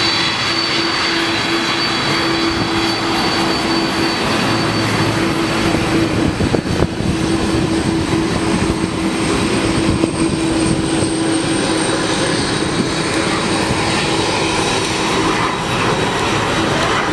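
Jet engines of a Boeing 747 (the VC-25A Air Force One, with four General Electric CF6 turbofans) running steadily: a loud, even noise with a held low hum and a high whine that comes up about eight seconds in.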